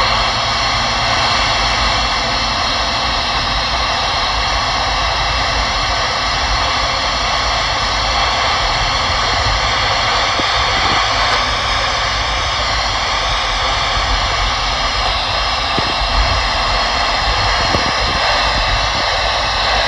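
Steady hiss of open-squelch static from a Uniden PRO 520XL CB radio's speaker on channel 19 with no one transmitting, over the low rumble of the vehicle's road noise.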